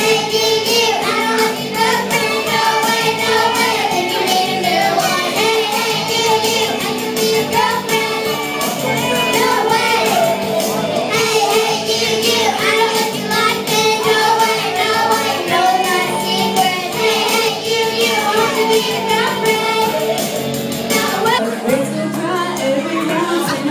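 Two young girls singing a pop song together through microphones over a karaoke backing track. About 22 seconds in, a single girl's voice takes over the song.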